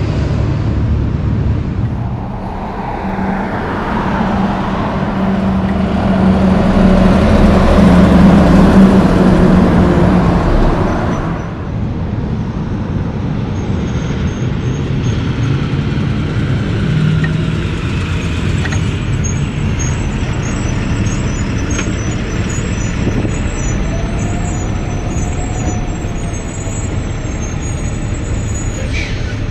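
Heavy trucks and cars passing on a highway. One heavy vehicle goes by with a steady engine hum that swells and is loudest around eight seconds in. The sound then changes abruptly to quieter, steady passing traffic.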